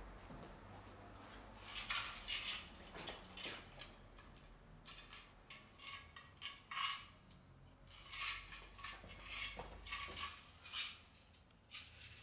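Faint, irregular light clinks and rattles, coming in small clusters of quick ticks.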